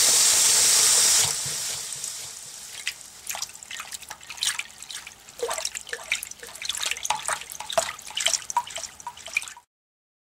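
Logo-intro sound effect: a loud burst of hiss that fades into scattered dripping and bubbling water sounds, many short pitched plinks, before cutting off suddenly.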